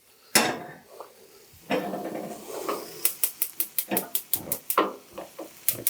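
A metal stock pot set down on the stovetop with a clank, then rapid, evenly spaced clicking, about five a second, in the second half.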